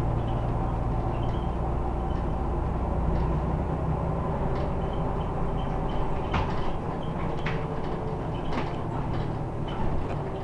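Cabin noise inside a 2005 Scania Omnidekka double-decker bus under way: the diesel engine and drivetrain running steadily, with a few sharp rattles from the bodywork and fittings in the second half.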